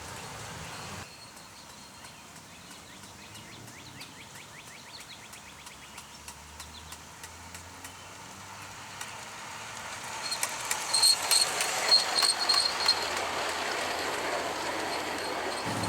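G-scale garden railway train running on its track, clicking over the rails and growing louder from about eight seconds in, with a run of loud clicks as it passes close.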